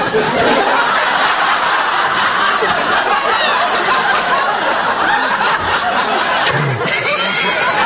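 Studio audience laughing loudly and continuously, many voices at once.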